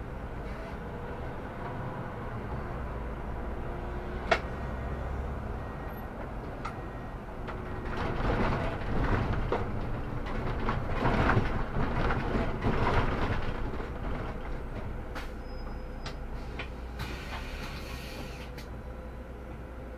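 Solaris Urbino 18 articulated city bus running, a steady low rumble with a sharp click about four seconds in. The noise swells for several seconds in the middle, and a short hiss sounds near the end.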